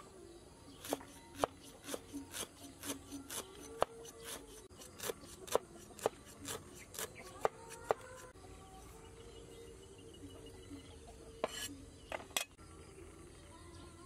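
Large kitchen knife chopping sliced leaves on a wooden chopping board: a run of quick, even knocks of the blade, about two to three a second, that stops about eight seconds in, with two more knocks near the end.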